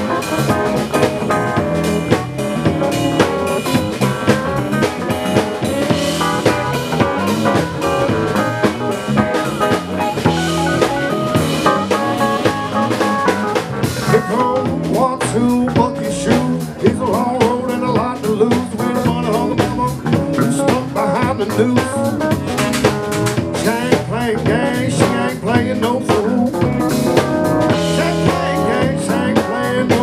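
A live band playing, with a full drum kit keeping the beat under pitched instruments.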